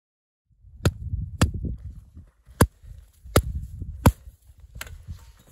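Six sharp taps of a hand striking a shovel blade laid on top of an isolated snow column, the taps of an extended column test that ends in a fracture propagating across the column on the 23rd tap (ECTP 23). The taps come roughly one every second, over a low rumble.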